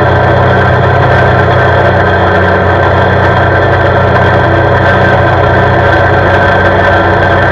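CFMOTO CForce 520 ATV's single-cylinder engine running steadily at a constant road cruising speed.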